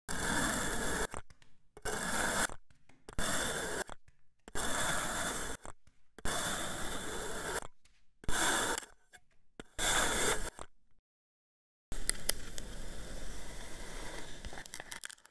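A knife blade slicing down through packed sand in a bowl, with about seven separate scraping, gritty cuts in the first eleven seconds. After a pause, about three seconds of continuous crackling with a few sharp clicks follow.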